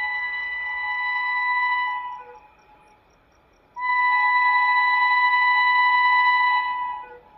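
WAP5 electric locomotive's air horn sounding two long, steady single-note blasts. The first is already sounding and stops about two seconds in. The second starts abruptly nearly four seconds in and holds for about three seconds.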